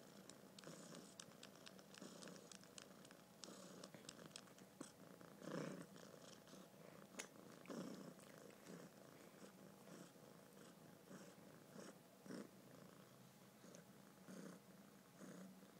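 Kitten purring close to the microphone, faint and uneven, swelling louder every second or two.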